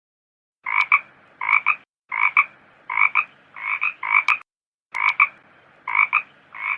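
Frog croaking in a rapid series of short calls, each a quick double note, repeating about every three-quarters of a second with a brief pause midway.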